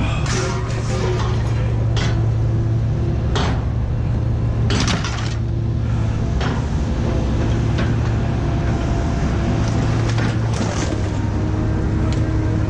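Scrap metal clanking and knocking at irregular intervals over a steady low hum.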